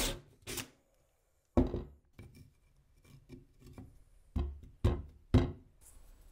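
A power tool grinding into a thin abrasive cutting disc stops just after the start. Then come a string of irregular sharp knocks and clicks as the disc is handled and tapped against a wooden block, the loudest three near the end.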